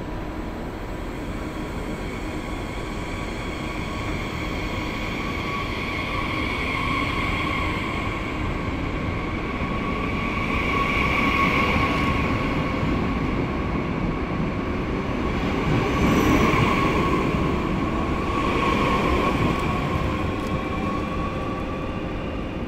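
A train running on rails: a steady rumble with a thin high whine over it that swells and fades a few times.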